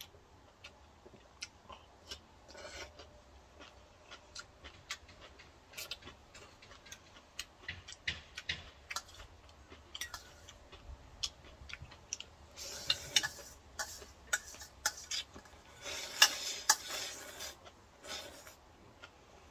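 Close-up sounds of someone eating ramen: a string of irregular sharp clicks and smacks, with two longer noisy stretches of noodle slurping, one about two-thirds of the way through and another a few seconds later.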